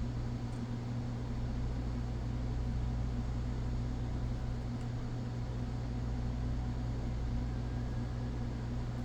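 Steady low electrical hum with an even fan-like hiss, unchanging throughout.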